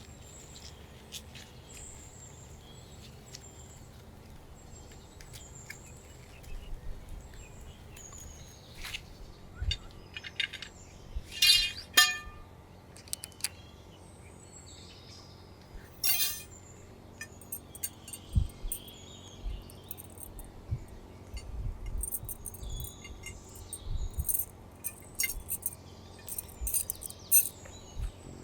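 Faint bird chirps over a quiet outdoor background, with scattered clicks, knocks and low thuds from about a third of the way in. A brief ringing clink about twelve seconds in is the loudest sound, and another comes near sixteen seconds.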